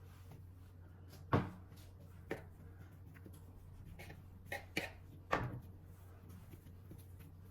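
A few short knocks and clicks, like objects being handled and set down, over a steady low hum.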